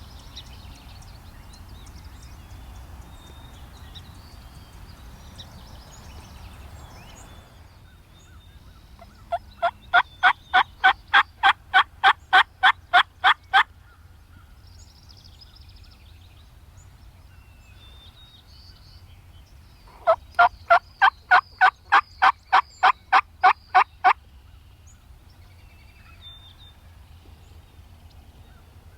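Two runs of loud, evenly spaced wild turkey yelps, about a dozen notes each, roughly three a second, lasting about four seconds apiece with ten seconds between them.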